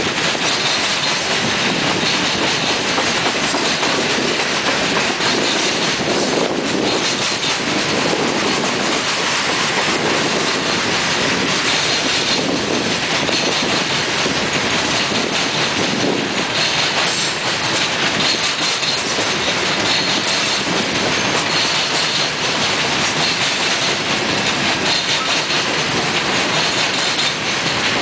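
Coal hopper cars of a unit coal train rolling past on steel wheels: a steady, loud rumble of wheels on rail with continuous clickety-clack.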